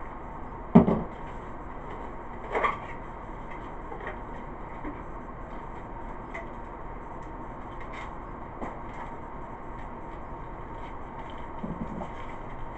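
Cardboard battery boxes being handled on a table. There is a sharp thump about a second in and a smaller knock a couple of seconds later, then light taps and rustles of cardboard.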